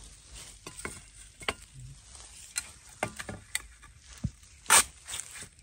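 Long-handled digging spade jabbing and scraping into dry bamboo leaf litter and soil, with crackling leaves and irregular knocks; the loudest knock comes near the end.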